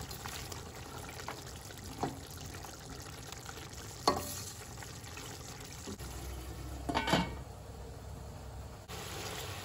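Lamb curry sizzling and simmering in a metal pot while a silicone spatula stirs it, with sharp knocks of the spatula against the pot about two and four seconds in. About seven seconds in, a short clatter as the lid is set on the pot.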